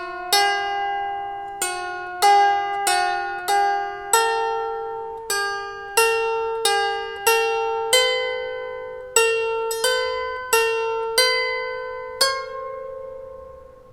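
12-string lyre harp plucked one note at a time in a simple melody, each note ringing and fading before the next. The last note, a little after twelve seconds in, is left to ring out.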